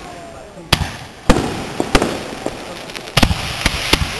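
Fireworks display: aerial shells bursting in a string of sharp bangs at irregular spacing, several in quick succession from about three seconds in.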